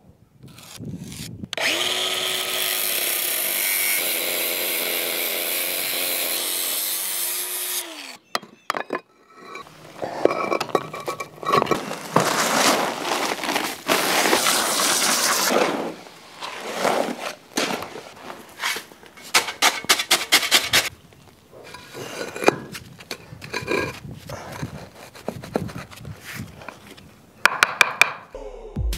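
Cordless angle grinder cutting a concrete paver: it starts about a second and a half in, runs at a steady whine for about six seconds, then winds down. Then comes irregular scraping and the rush of dry concrete mix poured from a bag into a wheelbarrow. Near the end there are a few quick hammer taps setting a paver.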